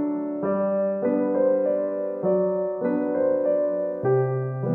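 Background piano music, with a new note or chord roughly every half second.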